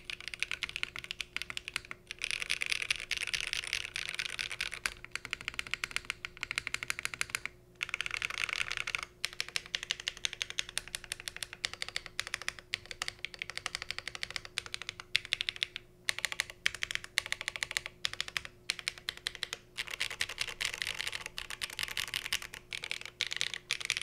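Continuous fast typing on a Cycle 8 gasket-mounted mechanical keyboard with HMX Ice Cendol switches, GMK Lime keycaps and a polycarbonate plate, no foam: a dense stream of clacky keystrokes broken by a few short pauses, with the spacebar hits sounding sharp.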